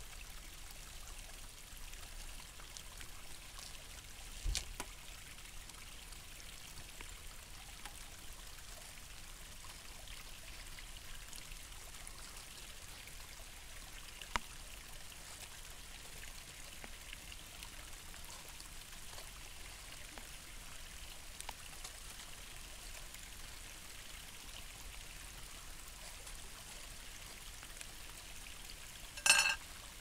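Steady rushing noise of running water, with a few faint knocks and one short, sharp clatter near the end.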